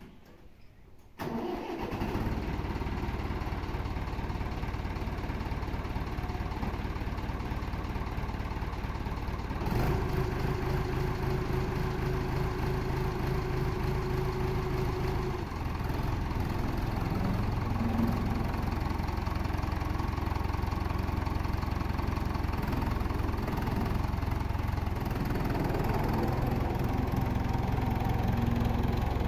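Massey Ferguson tractor's diesel engine starting about a second in, then running steadily. About ten seconds in it speeds up and gets louder, and its note shifts again later as the tractor moves off.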